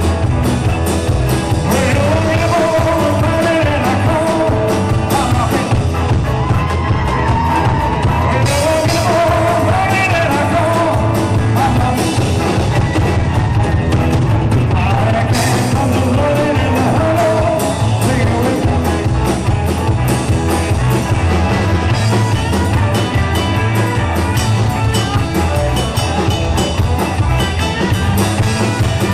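Live rock and roll band playing drums, bass and electric guitar, with a male singer singing over them. The vocal drops out about two-thirds of the way through and the band plays on.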